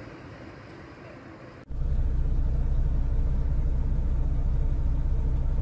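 A faint hiss, then about a second and a half in a loud, steady low vehicle engine rumble starts abruptly.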